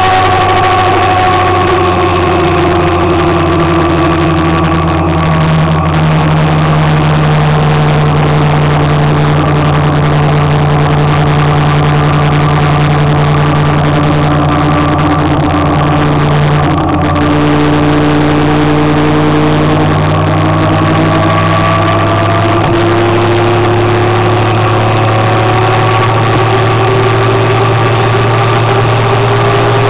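Motor scooter engine running under way over a constant rushing noise. Its pitch drops a little in the first few seconds, holds steady, and rises again from about two-thirds of the way in.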